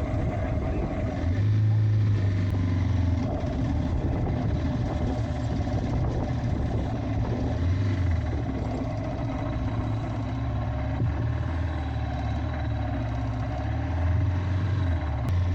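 Motorcycle engine running steadily as the bike rides, its low engine note rising and falling a few times.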